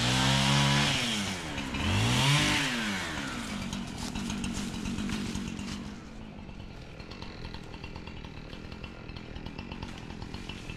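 Chainsaw engine revved up and back down twice, then running at a steadier lower speed before it drops away to a faint idle about six seconds in.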